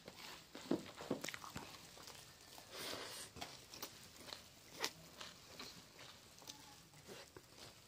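Faint, irregular crunching and rustling of puffed rice (mudhi) with fried potato, with a few sharper clicks.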